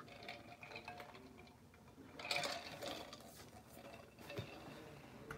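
Faint handling noises of a person moving about and reaching down: scattered soft clicks and knocks, with a short rustle about two and a half seconds in.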